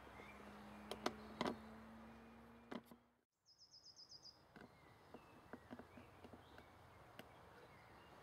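Faint outdoor ambience: a low steady hum and a few sharp clicks, then a sudden drop-out about three seconds in. Just after it comes a brief high, rapid trill of a small bird, and then scattered faint ticks.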